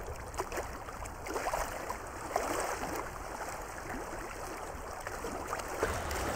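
Choppy, wind-driven water lapping and splashing against a boat hull and floating dock, in irregular small slaps.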